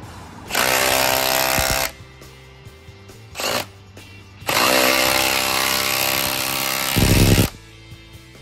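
Milwaukee FUEL cordless impact driver driving a hex-head lag bolt into a wooden beam: a run of about a second and a half, a short blip, then a longer run of about three seconds that ends in a deeper, heavier burst.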